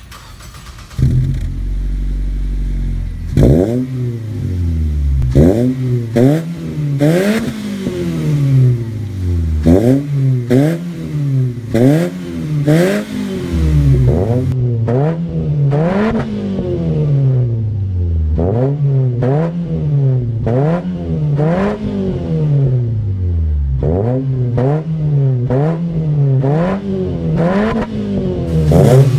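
Ford Focus 2.0 four-cylinder with an aftermarket full exhaust and K&N intake, idling briefly and then free-revved over and over, each rev climbing sharply and dropping back, one every second or two.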